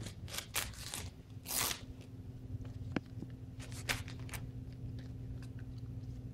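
Golden retriever chewing and mouthing a thin white cutout prop, giving irregular crunches and crackles.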